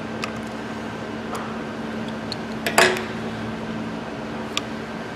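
Metal parts of a disassembled air impact wrench's motor being handled by hand: a few light clicks and one sharper metallic clink with a short ring about halfway through, over a steady background hum.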